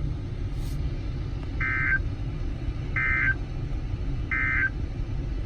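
NOAA Weather Radio sending three short bursts of screechy SAME digital data tones about 1.3 s apart: the End-of-Message code that closes a warning. A steady low rumble runs underneath.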